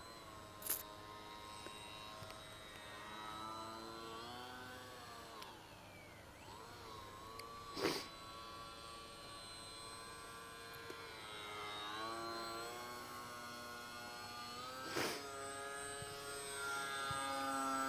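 Electric motor and APC 6x4 pusher propeller of a Bixler model plane whining, its pitch rising and falling again and again with the throttle. Three short sharp crackles cut in, about a second in, midway and near the end.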